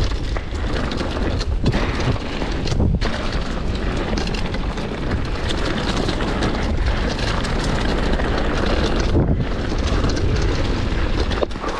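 Wind rushing over the microphone, mixed with the constant rattling and knocking of a downhill mountain bike running fast over rough trail. The noise drops out briefly a few times.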